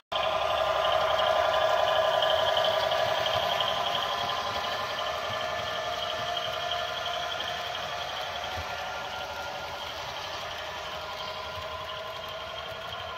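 HO scale model passenger train running past: a steady whir from its wheels on the rails, loudest a second or two in and slowly fading as the coaches move away.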